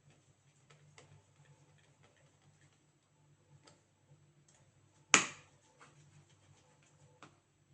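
Small hard plastic and metal parts of a laptop being handled: faint scattered clicks and taps, and one sharp loud click about five seconds in, over a low steady hum.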